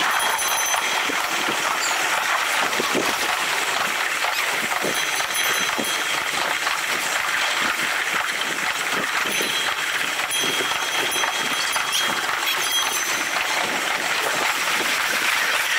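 Running noise of a train heard on board as it rolls along jointed track: a steady rumble and rattle with small knocks. A thin high squeal comes and goes a few times.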